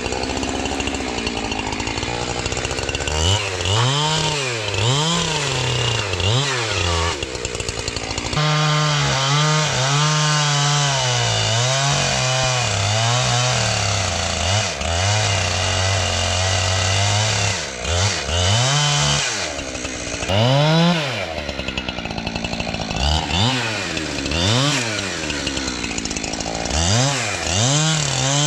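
Two-stroke chainsaw revving up and down over and over, with a stretch of about nine seconds in the middle where it holds steady high revs, the pitch sagging slightly as it goes.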